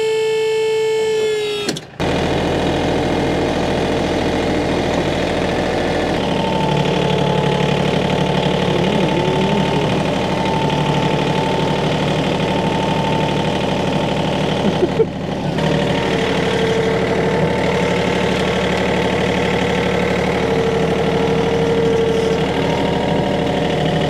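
John Deere compact tractor's diesel engine running steadily, getting louder about six seconds in as the front loader works. It is preceded by a steady high whine that cuts off about two seconds in.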